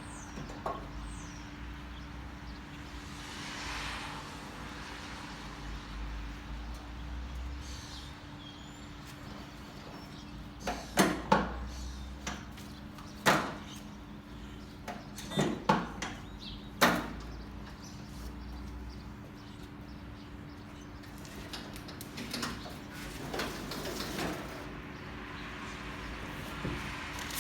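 Unboxing handling noises: a few sharp knocks and clunks in quick pairs through the middle, and softer scraping and rustling near the start and end, over a steady low hum.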